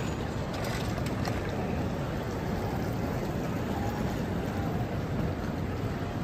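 Steady ambience of a large airport terminal hall: a low rumble and hiss with no clear voices, and a few faint clicks about a second in.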